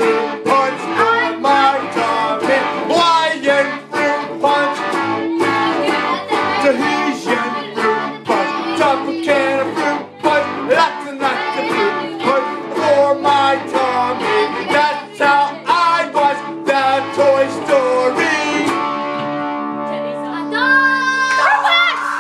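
Guitar music with fast plucked notes, and singing over it, settling into long held notes near the end.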